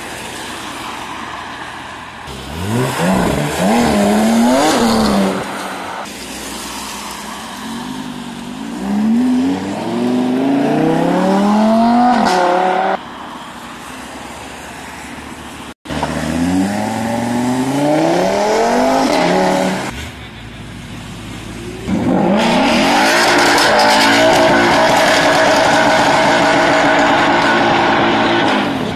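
Performance cars accelerating hard away from a meet one after another, among them a Porsche 911 GT3 RS and an Audi RS3. Each engine revs up in rising sweeps through the gears. Near the end one engine is held loud and steady at high revs for several seconds.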